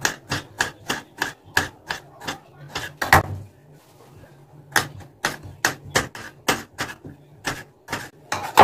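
Knife slicing a tomato directly on a stone countertop, the blade clicking against the stone with each cut, about four cuts a second. The cutting stops for about a second and a half in the middle, then resumes.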